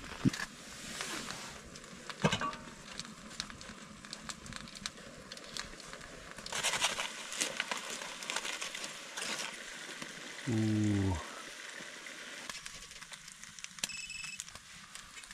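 Food sizzling and crackling on a small wood-burning tent stove, with foil crinkling and scraping as a knife pokes foil-wrapped potatoes and a skewer stirs in an enamel pot. A short hummed voice sound about ten seconds in is the loudest moment.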